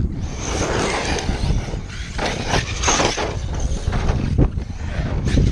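Wind buffeting the microphone over an ARRMA Kraton RC truck being driven hard on a dirt track: a gritty rush of tyres on loose dirt, with several sharp knocks of landings and impacts, most of them around the middle.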